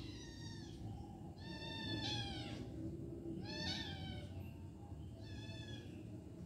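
A kitten mewing four times in high-pitched cries, one of them dropping in pitch at its end, as the mother cat grabs it by the scruff of the neck.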